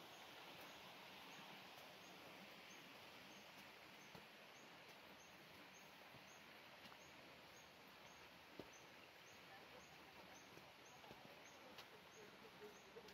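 Near silence: faint outdoor ambience, a steady hiss with a small high chirp repeating about twice a second. One sharp click comes about two-thirds of the way through.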